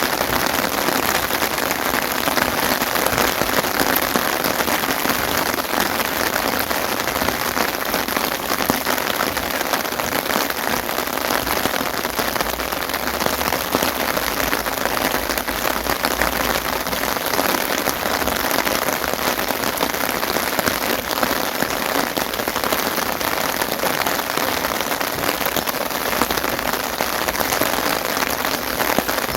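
Steady, heavy rain falling, a dense even hiss of countless drops striking surfaces.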